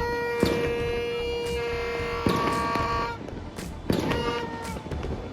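A horn blown in one long steady blast that cuts off about three seconds in, with a second, higher horn joining briefly just before. Sharp firecracker bangs go off about half a second in, at about two seconds, and near four seconds.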